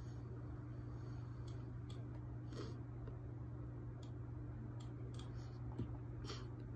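Scattered faint computer mouse clicks over a steady low electrical hum.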